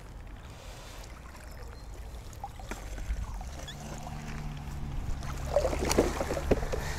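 Water trickling and dripping as a magnet-fishing rope and a muddy find are hauled out of a canal onto the bank, over a low steady rumble, with a faint steady hum from about halfway in.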